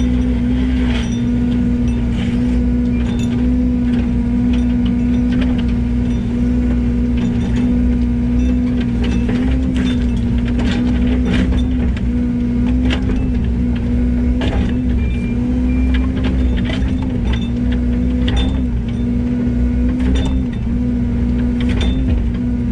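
Yanmar ViO80 excavator's diesel engine running steadily under working load, with many short knocks and clanks through it from the machine at work.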